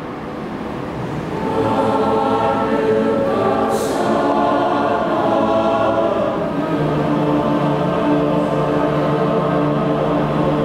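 Mixed choir of men's and women's voices singing a hymn in held chords, swelling louder about a second and a half in, with a deeper held note joining around seven seconds in.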